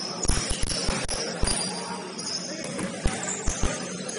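Basketball game in play: a ball bouncing on the court, thudding at irregular intervals, mixed with short high squeaks of sneakers.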